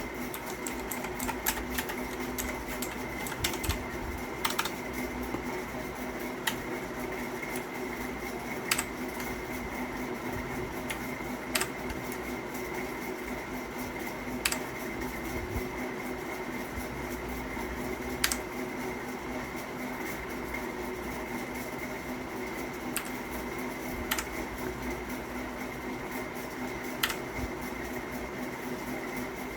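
Single keys being pressed on a Havit KB498L mechanical keyboard with clicky blue switches, each press a sharp click. A few come in quick succession at the start, then one every two or three seconds, over a steady background hum.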